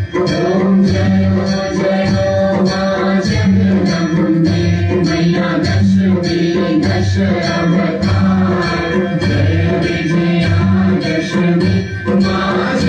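Hindu aarti hymn: voices singing over a steady, regular drum beat with jingling percussion.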